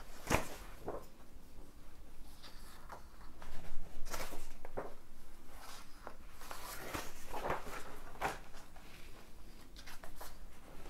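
Pages of an old spiral-bound paper magazine being turned and smoothed flat by hand: paper rustling and crackling in several separate bursts, the loudest about four seconds in.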